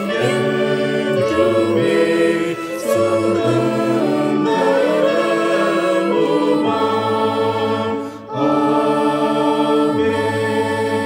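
Choir singing the last verse of a Tamil hymn in slow, held notes, ending on a long sustained chord for the closing Amen.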